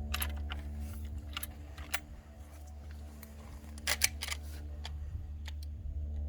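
Winchester Model 94 lever-action rifle in .44-40 being loaded: a scattered series of short metallic clicks as cartridges are pushed into it, over a steady low hum.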